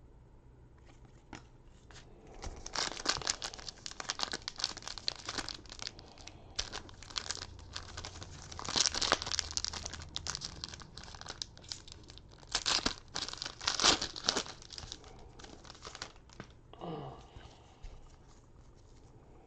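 Foil trading-card pack wrapper being torn open and crinkled, a run of crackling tears and crumples lasting about fourteen seconds, loudest around the middle.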